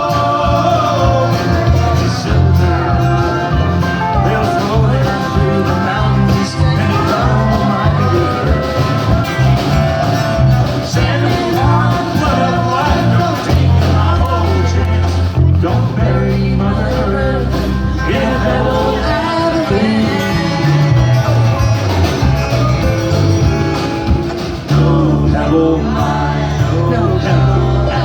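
Live band playing a country-bluegrass song through an instrumental break between sung verses, melodic lead lines over a steady bass.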